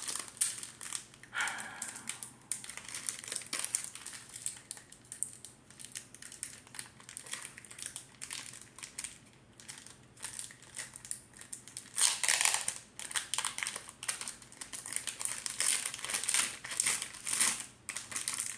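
Foil wrapper of a Pokémon card booster pack crinkling irregularly as it is handled and opened, louder about two thirds of the way through.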